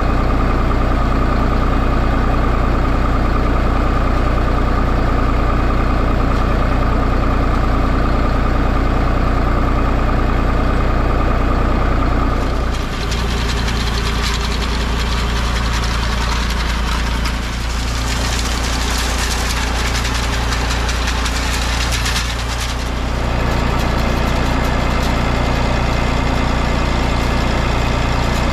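1961 Massey Ferguson 35 tractor engine running steadily under load while it drives a Rinieri BRM150 hedge trimmer's cutter bar through the hedge. For about ten seconds in the middle, a louder hiss of the blades cutting twigs and leaves comes through over the engine.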